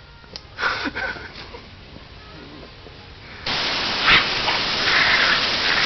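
Air blow gun switched on suddenly, a strong jet of air blasting as a loud, steady hiss, with a sharp click just after it starts. A few short, fainter sounds come before it.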